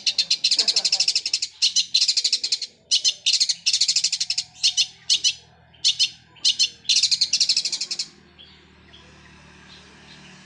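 Long-tailed shrike singing in fast, rattling, rapid-fire trills, compared in the title to a sewing machine, delivered as a string of short bursts. The song stops about eight seconds in, leaving a faint low hum.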